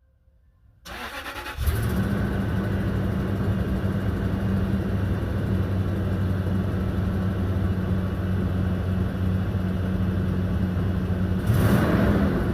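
A 2005 Toyota 4Runner's 4.7-litre V8 is cranked by the starter for under a second, catches and settles into a steady idle, with a brief rev near the end. The engine has a nasty exhaust leak.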